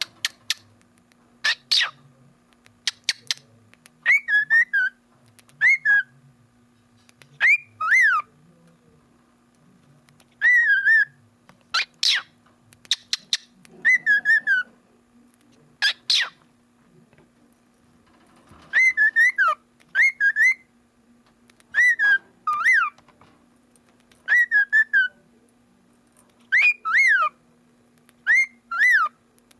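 Cockatiel giving short whistled calls every second or two, each a quick wiggle in pitch, mixed with very short, sharp, sneeze-like bursts.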